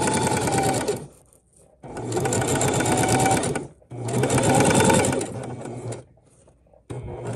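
Sewing machine stitching a seam down an invisible zipper in runs of about two seconds, stopping briefly and starting again three times.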